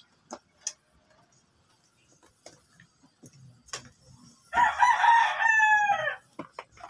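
A rooster crowing once, about a second and a half long, past the middle: a rough start, then a held note that drops at the end. Faint scattered clicks and taps before and after it.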